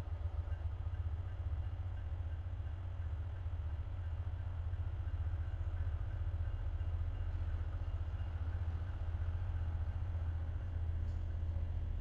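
Diesel locomotive engine running: a low, steady rumble with a fast pulse.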